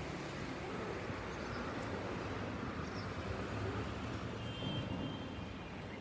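Steady outdoor street background noise with a low rumble, with a few faint high chirps.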